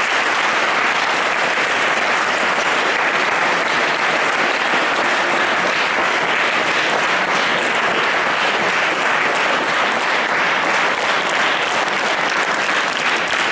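A large audience of schoolchildren applauding, a dense, steady clapping.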